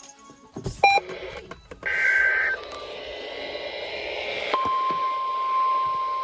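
Emergency alert radio broadcast: a short two-tone data burst of the EAS/SAME header code, then static hiss. About four and a half seconds in, a single steady alert tone near 1 kHz begins and holds, typical of the NOAA Weather Radio 1050 Hz warning alarm that comes before a new warning.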